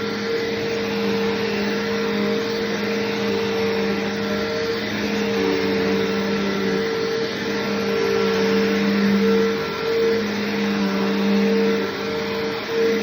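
Bissell PowerForce Bagged upright vacuum running with a steady motor hum. From about five seconds in the level swells and dips slightly as the load on the vacuum changes.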